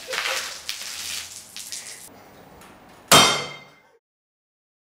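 A metal bowl gives a single sharp, ringing clang about three seconds in, dying away within a second. It comes after a couple of seconds of irregular clattering and rustling.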